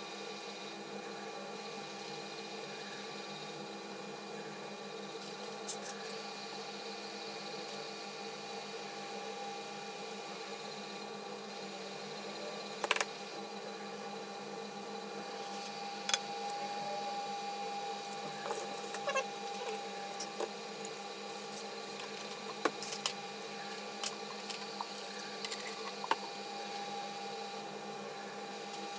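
Steady machine hum with several held tones. Over it come scattered sharp metallic clicks and knocks, mostly in the second half, from a metal scraper skimming dross off the surface of a molten solder pot.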